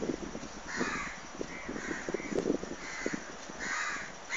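Caged myna giving a series of short, harsh calls, about six spread across a few seconds, with soft knocks underneath.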